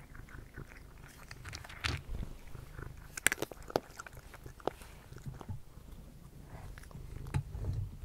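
A cat crunching and chewing dry kibble close to the microphone: a run of irregular crisp crunches, the sharpest a little over three seconds in.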